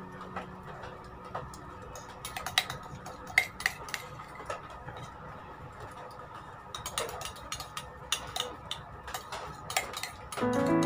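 A metal spoon clinking and scraping against a small metal container in irregular clusters of light clicks. Music comes in near the end.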